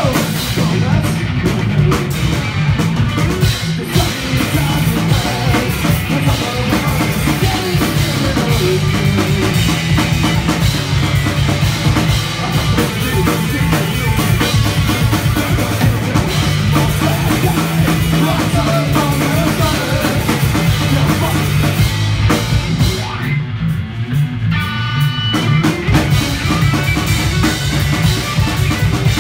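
Punk rock band playing live and loud: distorted electric guitars over a pounding drum kit, with no vocals. Near the end the cymbals drop out for about two seconds while a few guitar notes ring on, then the full band comes back in.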